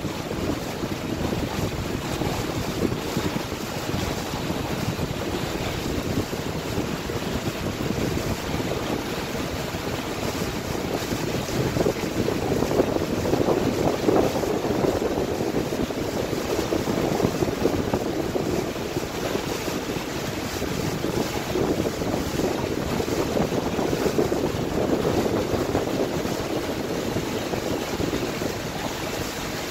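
Steady rush of lake water against a moving boat's hull, with wind buffeting the microphone as the boat cruises.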